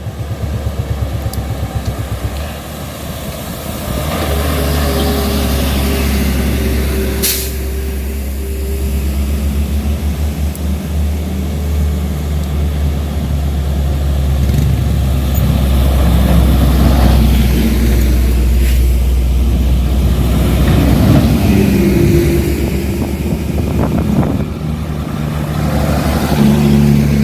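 Heavy truck's diesel engine running with a deep, steady rumble that grows louder from about four seconds in. A short, sharp hiss like an air-brake release comes about seven seconds in.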